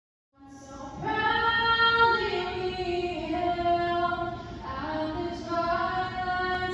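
A solo female voice singing without accompaniment, slow and with long held notes, starting just after the beginning.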